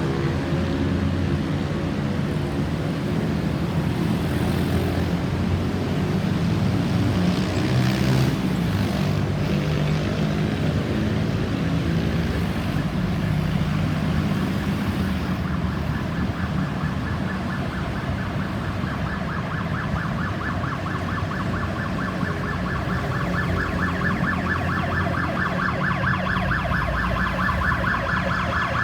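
Emergency vehicle's electronic siren in a fast warble, coming in about halfway through and growing louder toward the end, over a steady low rumble of road traffic.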